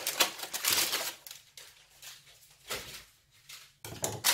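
Silicone-coated parchment baking paper rustling and crinkling as it is cut with scissors and pressed into a baking pan. The rustling comes in short bursts in the first second and again near the end, quieter in between.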